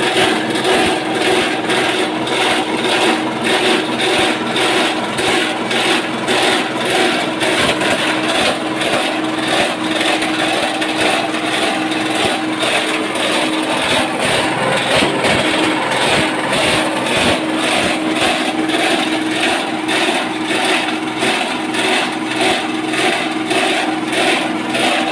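SM-30 multifunction shredder (chopper-grinder) running steadily under load, a steady motor-and-rotor hum with a rapid, even pulsing as it shreds material.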